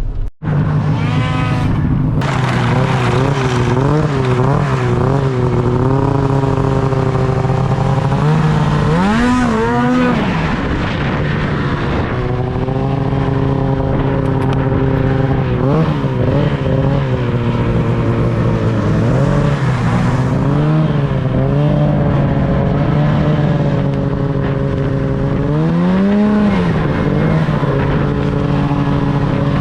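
Ski-Doo snowmobile engine running under way, its pitch mostly steady but climbing sharply and falling back with the throttle about nine seconds in and again near the end.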